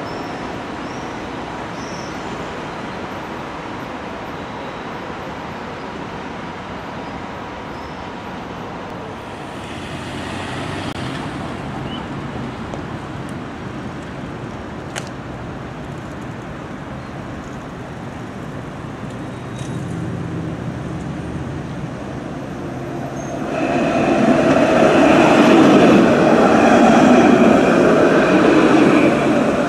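Alstom Citadis 302 tram passing close by: a steady rumbling run with a high steady whine, rising sharply to its loudest about three-quarters of the way in and easing off at the end. Before that, steady urban background noise as a tram approaches from a distance.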